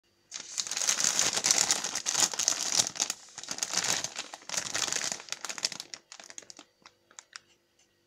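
Plastic cookie bag crinkling in dense spells as it is handled and turned over, thinning to a few scattered crinkles about six seconds in.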